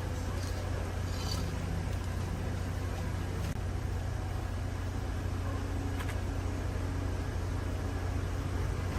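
A machine running with a steady low hum, with a few light clicks over it.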